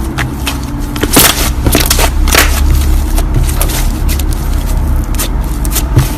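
Slime being kneaded and stretched by hand, with many sharp sticky clicks and pops over a steady low rumble.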